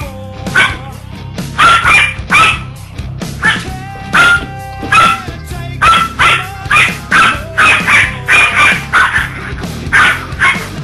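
A dog barking in short, sharp bursts, one or two a second, over background music.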